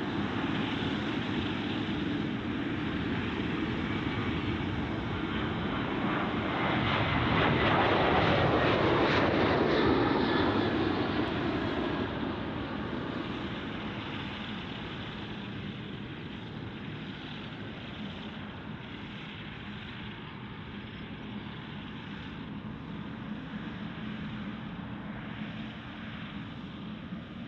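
Boeing 777-300ER's two GE90-115B turbofans running at taxi power: a steady jet rush and whine. It grows loudest about eight seconds in as the aircraft passes, the whine dropping slightly in pitch, then fades as it taxis away.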